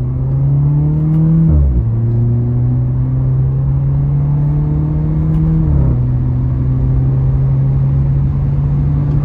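Volkswagen Jetta MK7 turbocharged four-cylinder with resonator and muffler deleted, accelerating hard in manual-shift mode. The engine note rises, drops with an upshift about one and a half seconds in, rises again and drops with a second upshift near the middle, then pulls steadily. Heard from inside the cabin.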